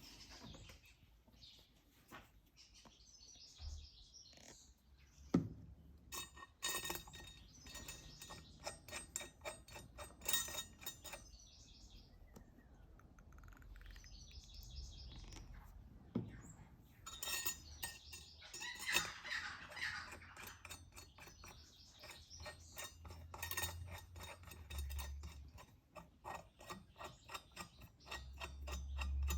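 Irregular small metallic clinks and clicks of sprocket bolts, plates and hand tools being handled as a sprocket is fitted to a minibike wheel hub, coming in quick runs in the second half. Faint bird chirps sound in the background.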